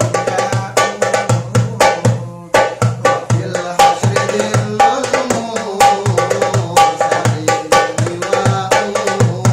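Hadroh hand drum played in a quick, steady rhythm of deep bass strokes and sharp slaps, about four to five strokes a second, with a brief pause about two seconds in.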